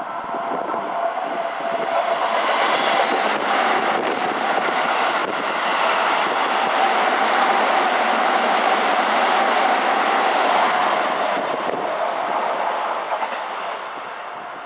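Keikyu 600 series electric train running in close alongside the platform: wheel and running noise swelling over the first couple of seconds, staying loud, then fading toward the end, with a steady whine through it.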